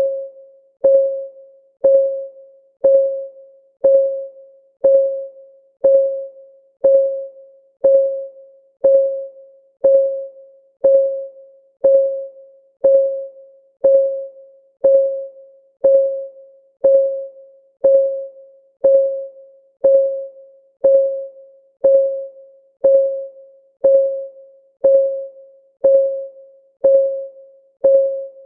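Clock-ticking sound of a countdown timer: a steady tick once a second, each tick short and pitched, dying away quickly before the next.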